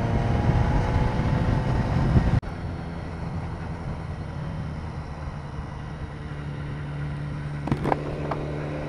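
BMW S1000R's inline-four engine under way, its pitch rising as the bike accelerates, with wind noise over the microphone. About two and a half seconds in the sound drops abruptly to a quieter, steady engine hum.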